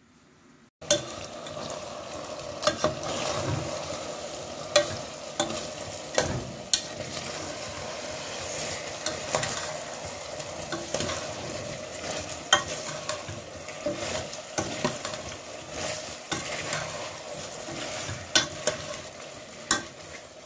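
Chicken feet sizzling as they stir-fry in an aluminium pressure-cooker pot, starting about a second in. A metal spoon scrapes and knocks against the pot many times as they are stirred.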